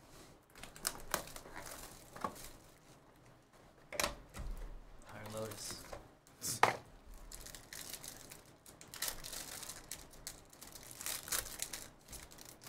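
Plastic trading-card pack wrappers crinkling as packs are handled and ripped open, with irregular rustling, tearing and a few sharp snaps, the loudest about six and a half seconds in.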